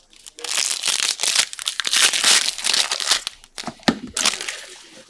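Foil trading-card pack being torn open and crinkled by hand: a dense, crackling rustle that starts about half a second in and dies away near the end.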